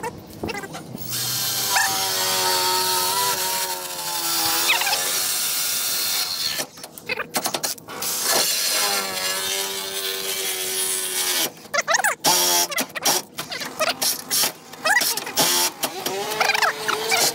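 Cordless drill boring through metal: the motor whines under load in long runs, the first about five seconds and the next about three, its pitch sagging and wavering as the bit bites. Clicks and short bursts come between the runs, and another run starts near the end.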